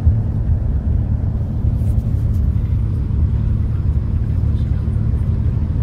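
Low, steady rumble of a bus heard from inside its cabin: engine and road noise with a faint steady hum above it.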